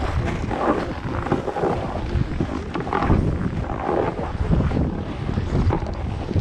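Wind buffeting the microphone of a skier's action camera, rising and falling in gusts, over the sound of skis sliding on groomed snow.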